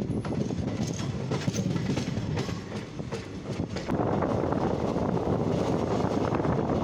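Passenger train wheels rolling over rail joints and points, heard from an open coach door: an irregular clickety-clack. About four seconds in it gives way to a steadier, denser running rumble.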